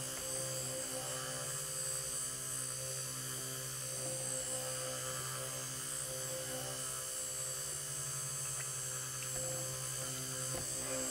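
Cuisinart Smart Stick immersion blender running steadily with an even hum, its shaft in a bowl of soap batter, blending it toward trace.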